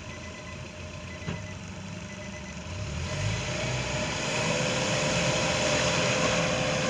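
Volvo Penta 3.0-liter four-cylinder boat engine running in reverse, throttled up about three seconds in, its note rising and then holding steady and louder under load.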